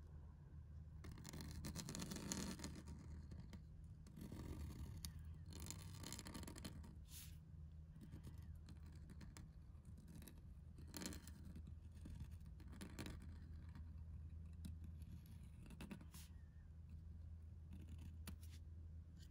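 Pointed steel calligraphy nib scratching faintly across paper in separate pen strokes a second or two apart, over a steady low hum.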